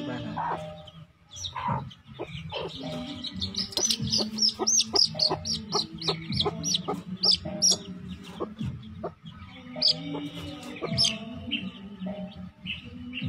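Chickens squawking and clucking while one is held for vaccination: rapid, high-pitched short calls, several a second, in the middle and again near the end.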